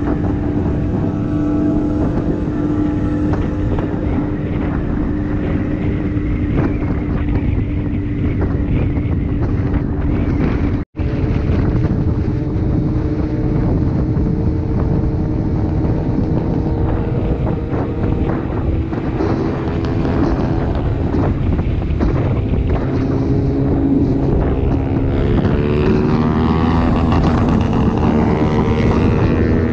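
Motorcycle engine running steadily at road speed, with wind noise on the microphone. The sound cuts out for an instant about eleven seconds in. Near the end another motorcycle comes close alongside, its engine note rising and falling.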